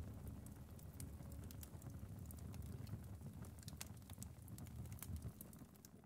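Faint wood fire crackling in a fireplace, with many small, irregular sharp pops over a low steady rumble.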